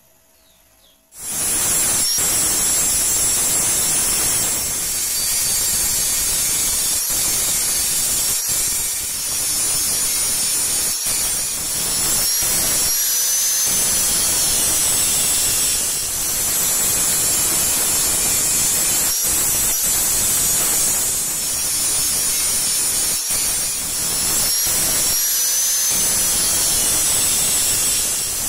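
Handheld angle grinder with an abrasive disc grinding a steel knife blade clamped in a vise. It starts suddenly about a second in: a loud, steady grinding with a high motor whine that wavers in pitch as the disc is worked against the steel, with a few brief dips.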